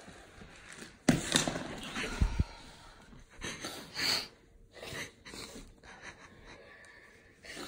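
Breathy gasps, sniffs and heavy breaths at close range, coming in short bursts. About a second in there is a loud rustle of clothing or handling, with a dull bump just after it.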